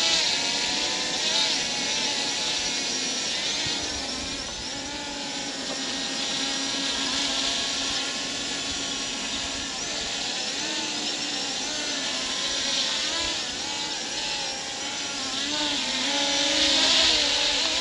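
Temu S177 folding drone hovering on its brushless motors: a steady propeller whine that wavers slightly in pitch as the motors hold it in the air.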